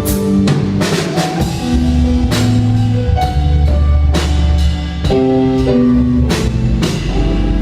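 Live cumbia band playing an instrumental passage: a drum kit's regular cymbal and snare hits over a bass line and held keyboard-like chords.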